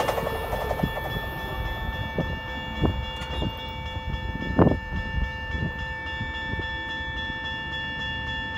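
Safetran Type 1 electronic crossing bells ringing steadily while the gates rise after a train has passed. The passing train's noise fades away at the start, and several knocks are heard, the loudest about four and a half seconds in.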